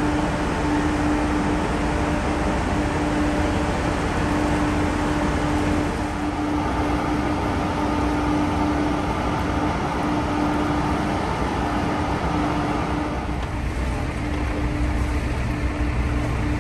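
Engine running steadily at idle, a constant hum over a low rumbling noise.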